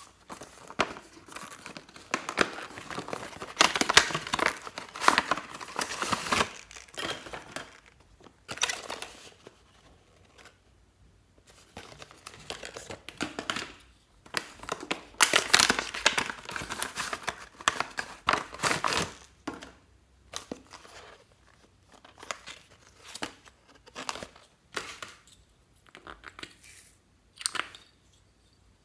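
Clear plastic packaging on boxed dolls crinkling and tearing as it is handled and pulled off, in two long stretches of dense crackling. Toward the end, sparser short rustles and clicks as small plastic pots are handled.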